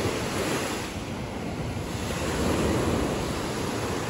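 Small ocean waves breaking and washing up a sandy beach, the surf swelling a little past the middle.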